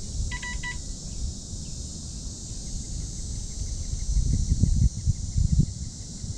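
Three short electronic beeps about half a second in. After them comes a faint, fast ticking over a steady high hiss, and in the second half low, irregular thumps and rumbles.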